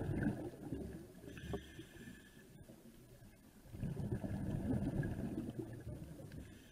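Scuba diver breathing through a regulator underwater: two long bursts of rumbling exhaled bubbles, with a shorter hiss of an inhalation between them.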